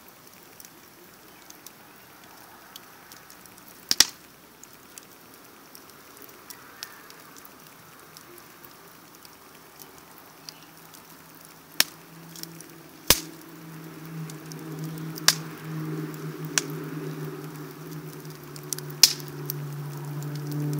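Wood fire burning in a steel wheel-rim fire pit: crackling, with a handful of sharp pops a few seconds apart over a soft hiss. About halfway through, a low steady hum starts in the background and grows louder.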